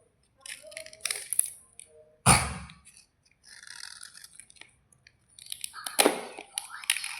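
Crunchy white slate bars crunching and crackling, with sharp snaps and gritty scraping in between. The loudest snap comes about a third of the way in, and another strong crunch near the end.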